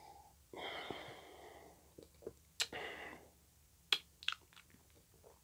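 A man sipping beer and tasting it: two soft breaths out, about half a second in and again near the middle, with a few small mouth clicks and lip smacks in between.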